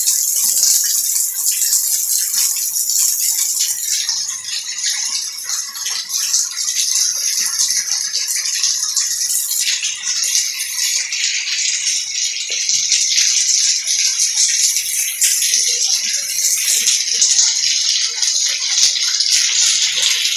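Heavy rain falling steadily, a dense crackling hiss that eases slightly a few seconds in and fills out again about halfway through.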